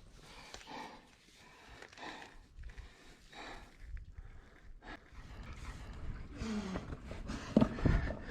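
Heavy breathing from exertion, a run of short puffs with a few louder huffs near the end.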